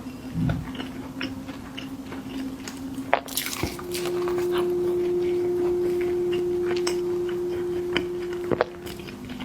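Close-up eating sounds: a person biting and chewing crunchy snacks, with many short crackles and clicks. A steady hum runs underneath, stepping up in pitch and loudness a little under four seconds in.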